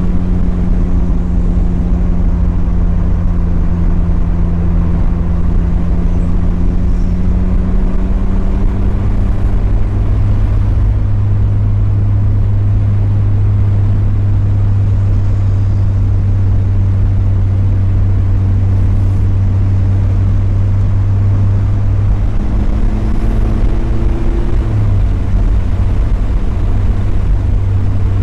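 Mazda Miata's four-cylinder engine and road noise while cruising: a steady drone with a slight rise in pitch near the end.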